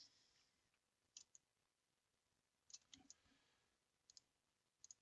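Faint computer mouse clicks, in small groups of two or three a second or so apart.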